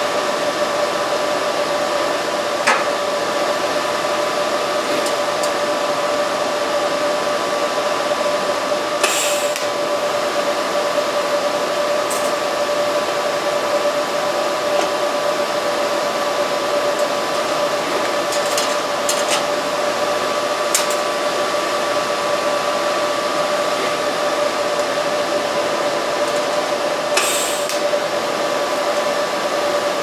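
Arc welding of stainless steel from an inverter welder: a steady hum with a constant whine over it, and a few short bursts of arc hiss, the loudest about nine seconds in and again near the end.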